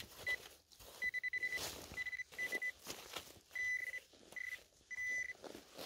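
Handheld metal-detector pinpointer beeping at one high pitch in about seven short and longer bursts, one of them rapidly pulsing, as it is probed into the soil: the sign of a metal target close by, here a second buried button. Faint scraping and clicks in the leaf litter between the beeps.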